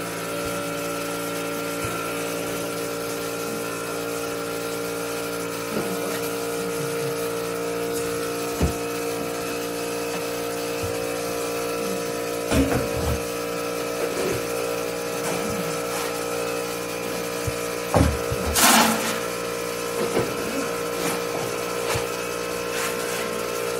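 The vacuum pump of a Hantop portable goat milking machine running with a steady hum. There are a few light knocks, and a brief hiss of air about three quarters of the way through.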